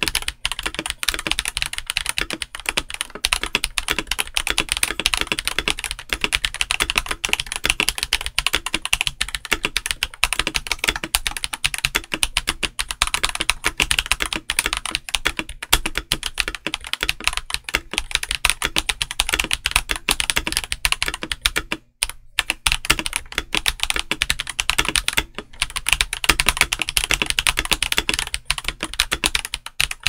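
Continuous typing on a Redragon K656 Garen Pro mechanical keyboard with Redragon Purple tactile switches and Top DS keycaps: a steady run of rapid keystroke clacks, with two brief pauses in the last third.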